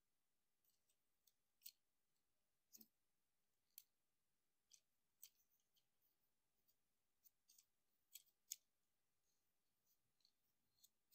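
Faint, sharp plastic clicks and snaps from a Transformers Optimus Prime action figure as its joints and panels are moved and locked into place while it is transformed into truck mode. About a dozen single clicks come at irregular intervals, with a quick double click about eight seconds in.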